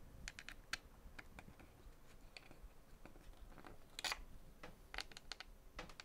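Faint, scattered small clicks and ticks of a tiny screwdriver and screw working on an RGB heat sink fitted to a RAM stick, with a sharper click about four seconds in.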